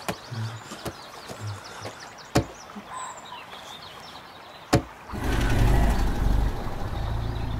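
A few sharp clicks over faint background, then about five seconds in a vehicle engine comes in suddenly and runs with a steady low rumble.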